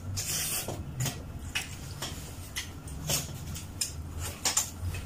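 Two people eating pork ribs: chewing, smacking and gnawing meat off the bone, heard as irregular short wet clicks and rasps.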